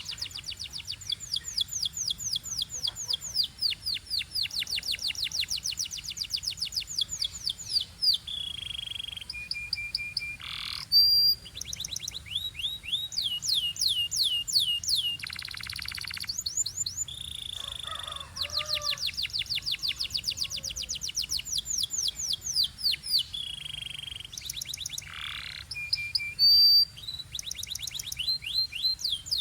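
Belgian canary singing: fast trills of rapidly repeated falling notes in runs lasting several seconds, broken by short held whistles and a few sharp, very high notes.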